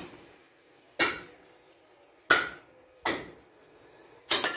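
Heavy meat cleaver chopping bone-in meat on a wooden chopping block: four sharp chops at uneven intervals, each a hard knock with a short ring.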